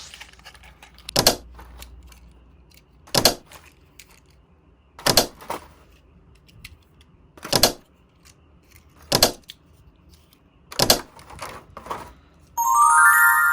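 Sharp clacks of hard plastic toy pieces, about one every two seconds, with fainter clicks in between. Near the end a short electronic sound effect of stepped, beeping tones comes in.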